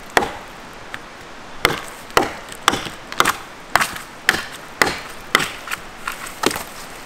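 Large handmade bushcraft knife (the "Castoro" chopper) used like a hatchet, its blade chopping into a branch: sharp wood-cutting strikes, one at the start, then after a pause of about a second and a half a steady run of about two chops a second.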